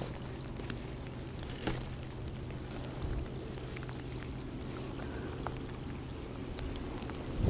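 Baitcasting reel being cranked during a lure retrieve: a low steady whir with scattered small clicks, one sharper tick about a second and a half in.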